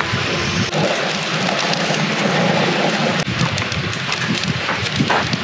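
Wind buffeting the microphone: a steady, loud rushing noise with a gusting low rumble.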